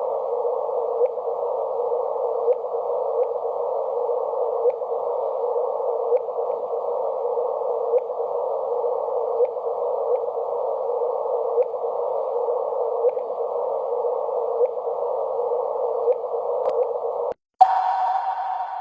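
Gravitational-wave detector data turned into sound: a steady band of static-like hiss with faint short chirps recurring about every second or so. Near the end it cuts off abruptly and a ringing, pitched tone starts and fades.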